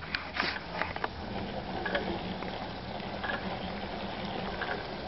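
Well-drilling rig running: a steady motor hum with water gurgling and splashing, and scattered small clicks.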